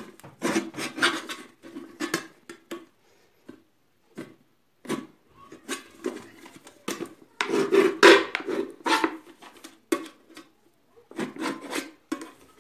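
Kitchen knife stabbing and scraping at the thin metal lid of a tin-can money box, in irregular bursts of rasping strokes with short pauses between, loudest about eight seconds in.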